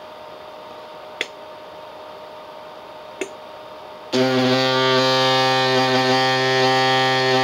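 A machine's steady hum with two short clicks, then about four seconds in a loud whine of many steady tones starts suddenly and holds: the printer's stepper motors starting to move after sitting at the building stage.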